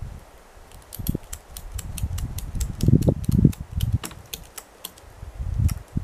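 Rapid run of sharp clicks, several a second, over low irregular rumbling, from a man working by hand at a cut log beside a snowmobile sled.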